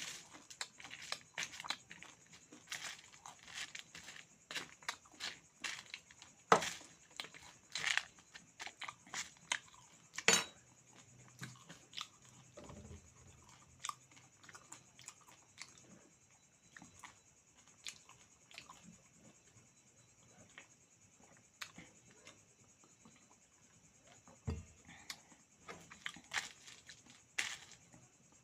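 Close-up chewing and crunching of meat and dry beaten rice: irregular crisp crunches and mouth clicks, with a few louder crunches in the first half and a quieter stretch of chewing after it.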